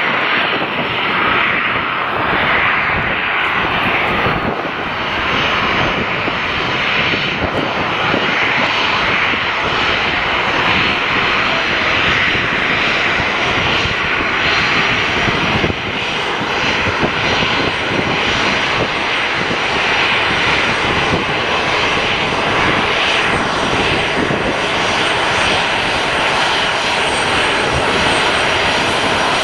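Boeing 737-300 freighter's CFM56-3 turbofan engines running at taxi power as the jet taxis. A steady jet engine noise with a faint high whine on top.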